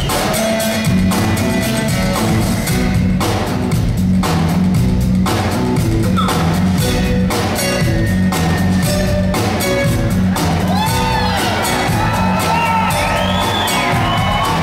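Live band music: acoustic guitars over a drum kit and hand drums with a steady beat. High gliding notes come in over the top near the end.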